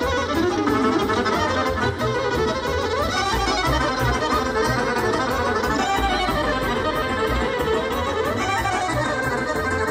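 Accordion-led Balkan kolo dance music with a steady low beat under a fast-running melody.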